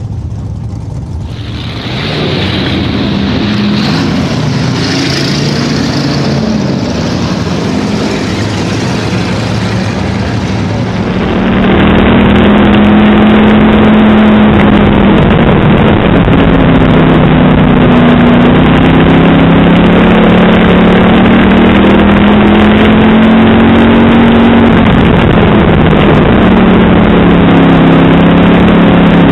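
Hobby stock race car's engine heard from inside the car during a heat race. It runs at moderate level at first, then from about twelve seconds in gets much louder and stays loud, its pitch rising and falling as the driver goes on and off the throttle through the laps.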